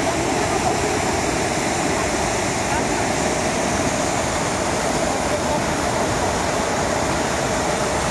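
Mountain river rushing over boulders in white-water rapids: a steady, loud rush of water.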